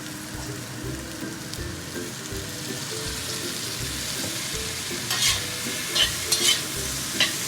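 Cabbage stir-frying in a wok, sizzling steadily just after soy sauce and scallions go in. In the second half a spatula scrapes and knocks against the wok several times.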